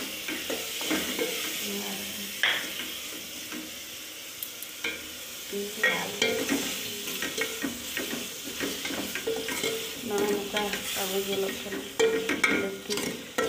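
A steel ladle stirring and scraping food frying in an aluminium pot, over a steady sizzle. The clinks and scrapes of the ladle against the pot come thicker from about midway on.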